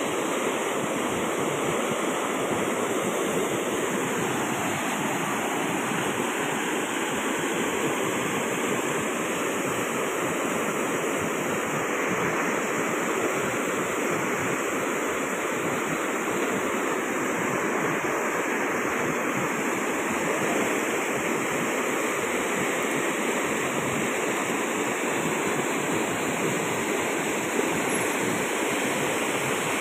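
A river in flood: muddy water rushing and churning in a steady, unbroken rush.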